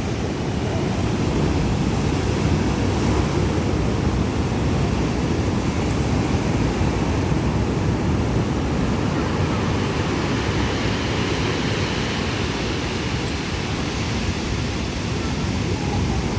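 Sea surf washing steadily on the shore of the Black Sea, with wind on the microphone.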